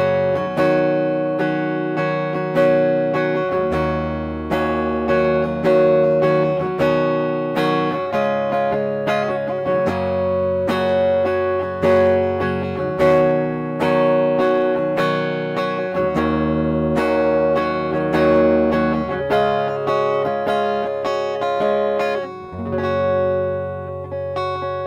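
Schecter Hellraiser Extreme C-1 electric guitar played through its EMG 89 neck pickup with a clean tone: picked chords and single notes ringing one after another, with a final chord left to ring out near the end.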